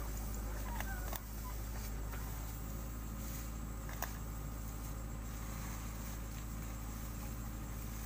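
Kubota DC-70 combine harvester's diesel engine running steadily with an even low hum, with one sharp click about four seconds in.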